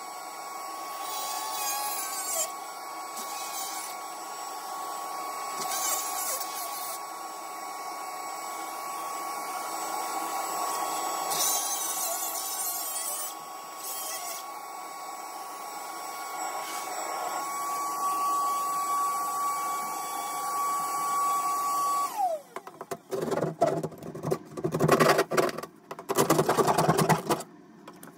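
Shop vacuum running with a steady whine, with occasional scraping over it; about three quarters of the way through it is switched off and its motor winds down with a falling whine. After that come irregular scraping and tapping strokes of a hand tool against the wall.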